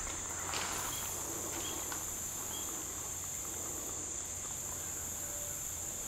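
Steady, high-pitched chorus of insects, crickets, with no other sound standing out.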